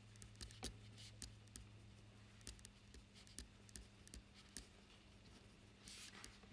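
Felt-tip pen writing on paper: faint, short scratches and taps of the tip as the letters are formed, with a slightly longer scratch near the end.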